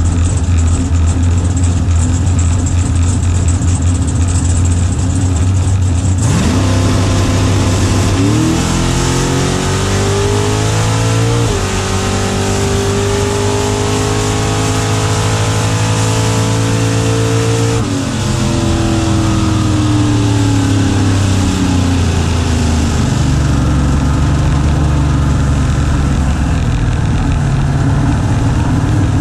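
The 850 hp 1968 Firebird drag car's engine heard from inside the cabin: a loud low idle, then about six seconds in a full-throttle launch with the engine pitch climbing, a gear change, and a long pull. About eighteen seconds in the throttle comes off and the pitch falls away as the car slows back down to a low rumble.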